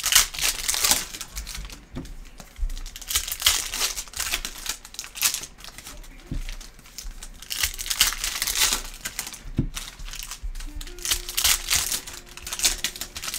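Foil wrappers of Panini Prizm Fast Break basketball card packs being torn open and crinkled by hand, in repeated bursts of crackling foil.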